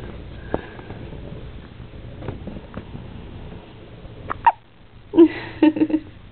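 Newborn baby hiccuping: short, sudden hiccups at irregular intervals, with a quick cluster of louder ones, carrying a brief voiced squeak, near the end.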